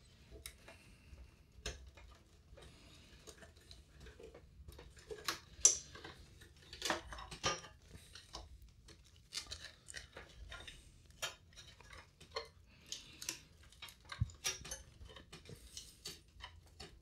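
Ribbon cables and plastic connectors being unplugged and pulled out of a Macintosh SE's metal chassis: scattered clicks, small knocks and rustling of cable. The sharpest click comes about six seconds in.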